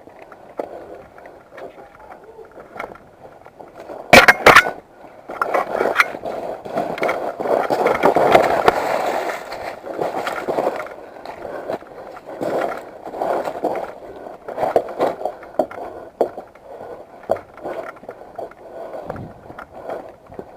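Irregular crunching and rustling of a player moving on foot through dry leaves and brush. About four seconds in there is a quick string of three or four sharp cracks.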